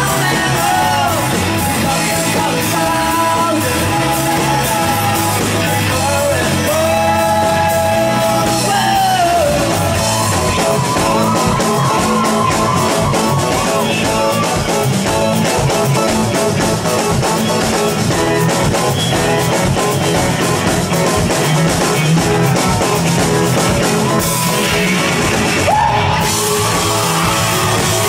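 Live rock band performance: a sung lead vocal over drum kit and electric guitars, loud and steady throughout.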